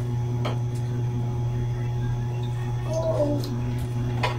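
A steady low hum, with a few light clicks of spoons on ceramic soup bowls and a brief murmured voice about three seconds in.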